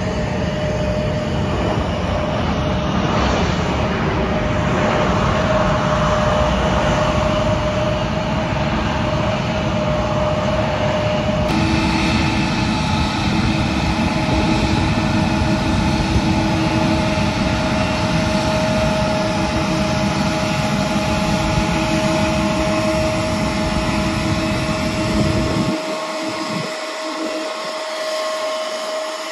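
Jet aircraft noise: first a jet flying low nearby, its roar swelling and fading, then, after a sudden change, the engines of a Boeing 777 taxiing close by at low power, a steady rumble with a droning whine of several held tones.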